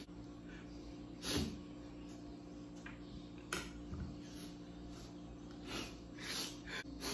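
A person crying over onions: a few short sniffs and sobbing breaths, the loudest about a second in, over a steady low room hum.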